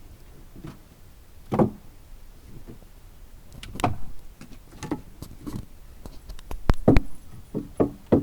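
Irregular knocks and clacks of pieces of wood being handled and dropped onto one another, a few spread out at first and a closer run of sharper ones near the end.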